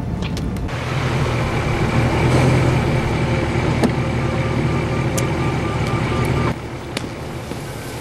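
Land Rover Defender V8 running as the truck drives along the road: a low engine rumble with road and tyre noise and a few sharp clicks. The noise drops off abruptly about six and a half seconds in.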